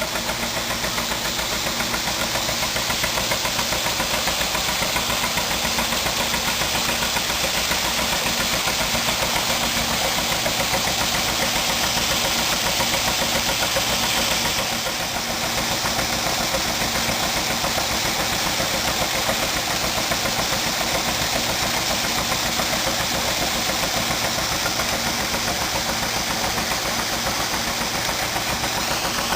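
An engine running steadily with a fast, even beat, dipping briefly in level about halfway through.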